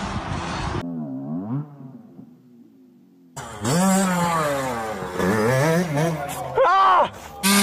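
Dirt bike engines revving hard in short back-to-back clips, the pitch swooping up and down with each grab of the throttle. In the middle clip the bike surges at full throttle as the rider loses control in an accidental wheelie (a whiskey throttle). The sound cuts off abruptly between clips, with a muffled, quieter stretch about a second in.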